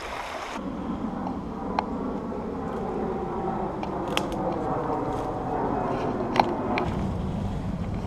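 Footsteps pushing through leaf litter and undergrowth, with a few sharp snaps of twigs, over a steady rushing noise.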